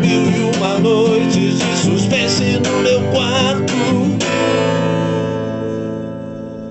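Strummed acoustic guitar with a wavering sung melody, ending about four seconds in on a final chord that rings out and slowly fades.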